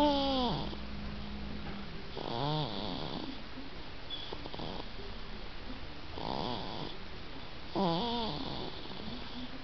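A 4-month-old baby snoring in her sleep: four pitched, voiced snores, one every two to four seconds, the first falling in pitch.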